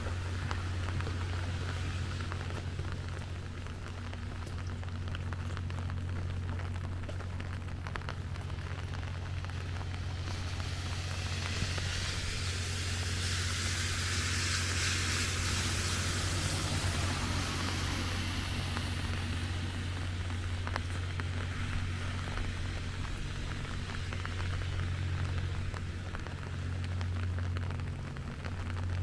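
Rain falling on a city street, with a steady low hum underneath. About a third of the way in a hiss swells, peaks and fades away over roughly ten seconds.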